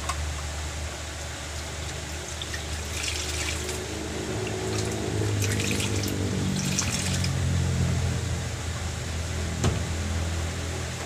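Water trickling and splashing from a wet cloth being wrung out over a basin, in two bursts, the second longer, over the steady low hum of an electric fan. A single sharp knock comes near the end.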